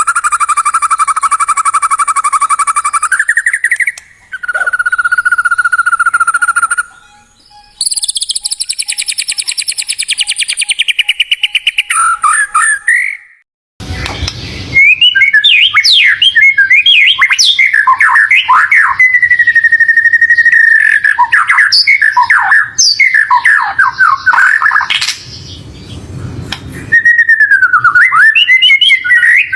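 Songbird lure recording of the kind used to provoke a white-rumped shama into singing. Spliced clips of long buzzy, rattling trills give way, about halfway through after a short noisy burst, to a fast run of sharp whistles and chirps.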